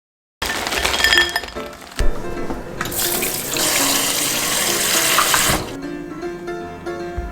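Kitchen tap water running into a sink for about three seconds, starting about three seconds in and cutting off sharply, after a few light clatters. Background music plays throughout.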